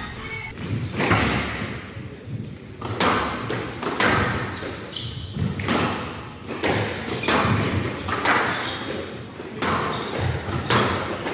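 Squash ball struck by rackets and smacking off the walls of a glass-backed court, sharp cracks about half a second to a second apart, each with an echo. There is a short lull in the middle, between rallies.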